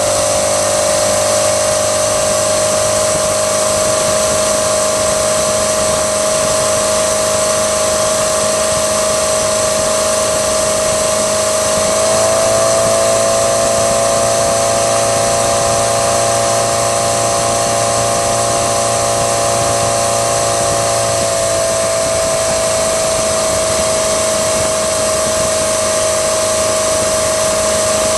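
3.0L MerCruiser inline four-cylinder sterndrive engine running steadily with a high whine, which rises slightly in pitch about twelve seconds in and settles back down some nine seconds later. It carries the ticking noise that its owner has heard since the start of the season and cannot identify.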